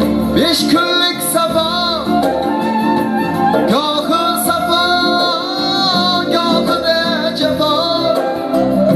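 A man singing an Uzbek song over instrumental backing, holding long, wavering notes.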